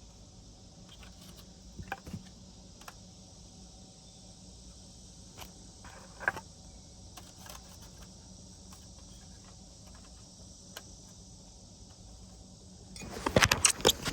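Steady high chirring of crickets, with scattered small clicks and taps from parts being handled. About a second before the end comes a short burst of loud rattling and clattering.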